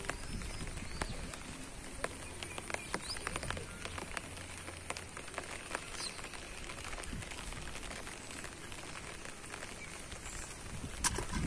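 Quiet outdoor ambience: scattered small clicks and ticks, with a few faint short chirps.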